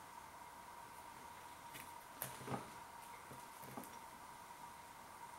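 A few faint crackles and soft clicks from a sausage roll's flaky pastry as it is picked up and broken open by hand, mostly about two to four seconds in, over a faint steady hum.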